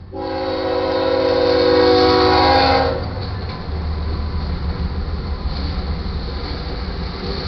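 The lead diesel locomotive, GE ES44C4 BNSF 8092, blows its air horn as it reaches the grade crossing: one loud, steady chord of several notes lasting about three seconds. The horn stops as the locomotives and freight cars rush past close by, with a loud rumble of diesel engines and steel wheels on the rails.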